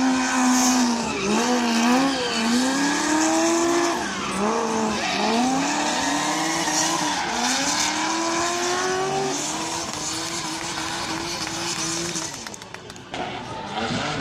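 Drift car's engine revving hard, its pitch rising and dipping every second or two, over tyres squealing as the car slides. The sound drops away briefly near the end, then comes back.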